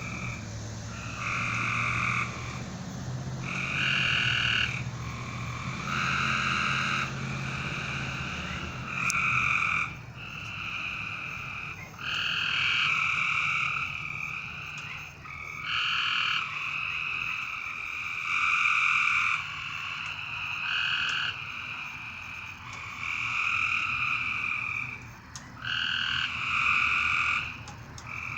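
Chorus of frogs calling, their calls overlapping. Each call lasts about one to two seconds, and the calls follow one another with hardly a break.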